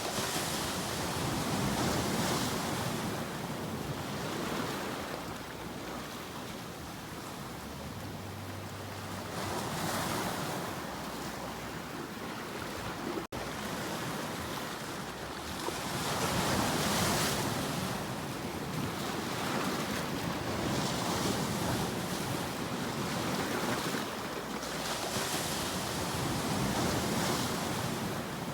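Ocean waves breaking and washing up the shore, the surf swelling and falling back every few seconds. The sound drops out for an instant about halfway through.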